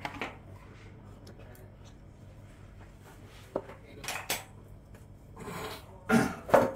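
Quiet room with a few scattered light clinks and knocks, like dishes or cutlery being handled; a single click about three and a half seconds in, two more around four seconds, and the loudest pair just after six seconds.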